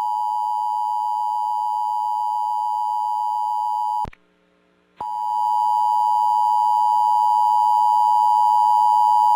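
Emergency Alert System attention signal: the steady two-note tone (853 and 960 Hz) that goes out with a required monthly test. It cuts off about four seconds in and, after about a second of silence, starts again louder with a faint low hum beneath it.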